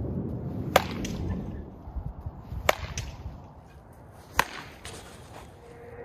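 Barrel-loaded heavy baseball bat hitting balls off a batting tee: three sharp cracks, about two seconds apart.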